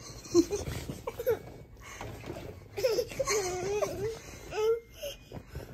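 Infant vocalizing: a string of short, high-pitched squeals and coos that waver in pitch, with a longer drawn-out one after about three seconds.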